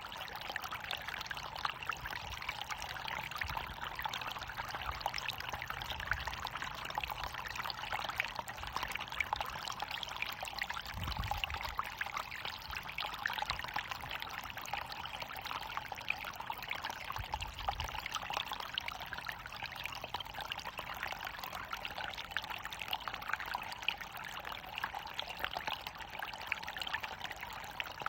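Running water falling and splashing steadily, a dense patter of small splashes over an even rush. A low rumble swells briefly twice, about eleven and eighteen seconds in.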